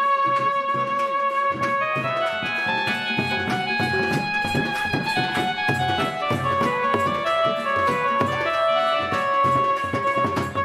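Sambalpuri folk dance music: a dhol is beaten in a fast, steady rhythm under a melody instrument playing long held notes.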